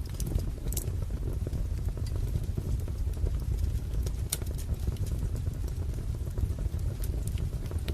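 Wood fire crackling: a steady low rumble of burning logs with a few sharp, scattered pops.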